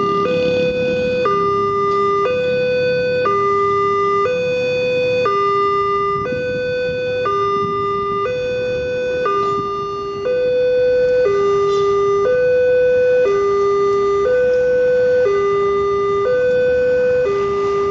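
Railway level-crossing warning alarm: an electronic two-tone signal that switches between a higher and a lower tone, each held about a second, repeating steadily. It warns that a train is approaching while the barriers are down.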